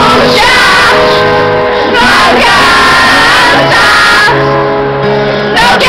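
Live pop ballad: a male voice singing over piano, loud and continuous.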